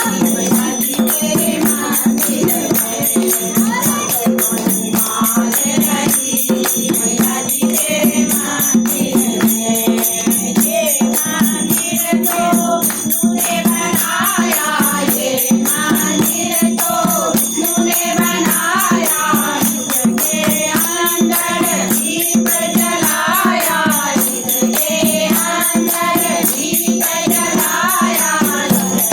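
Hindu temple devotional singing: voices chanting together over a steady low drone, with continuous metallic jingling and ringing percussion.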